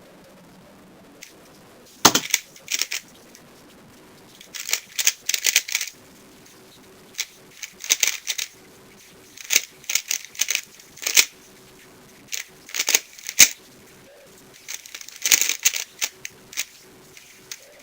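DaYan GuHong 3x3 speedcube being turned fast in a timed solve: bursts of rapid plastic clicking as the layers are flicked, broken by short pauses, starting about two seconds in.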